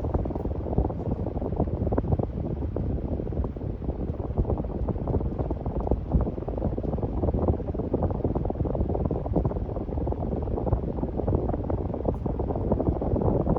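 Casablanca Lady Delta ceiling fan running, its airflow buffeting the microphone in a gusty low rumble.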